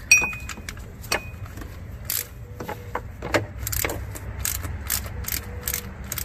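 Socket ratchet working a compressor mounting bolt: scattered metallic clicks and clinks, with one sharper clink that rings briefly just after the start.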